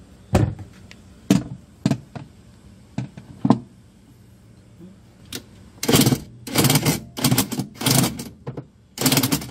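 A few sharp knocks as the plastic washing-machine pulsator is pressed onto its shaft in the drum. Then, in the second half, several short bursts of a cordless Narion impact drill hammering as it drives in the pulsator's centre screw.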